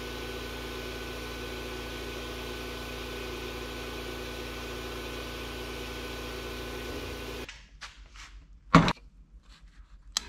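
Steady hiss and hum of a sandblasting cabinet's air and extraction running, cut off sharply about seven and a half seconds in. A loud single knock follows, then near the end a click from a bench grinder's rocker switch.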